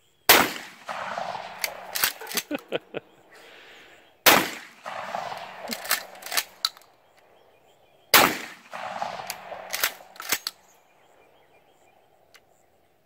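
Three shots from a Remington 870 Express 12 gauge pump shotgun loaded with birdshot, about four seconds apart, each with a short echo and followed by several sharp clacks of the pump action being racked.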